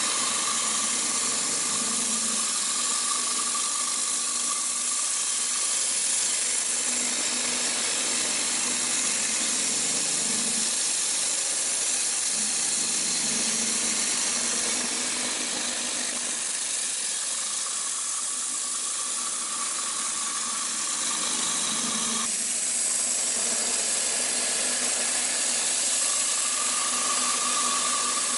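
Giddings & Lewis PT1800 CNC horizontal boring mill running: a steady hiss with a whine that comes in and fades out three times.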